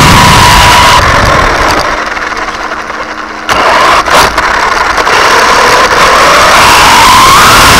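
1/10-scale electric RC truggy's high-KV brushless motor and drivetrain whining under throttle, with rolling and chassis noise, heard up close from a camera on the rear shock tower. The whine drops away while it coasts for a couple of seconds, sharp jolts come about four seconds in as power comes back, and the pitch climbs near the end as it speeds up.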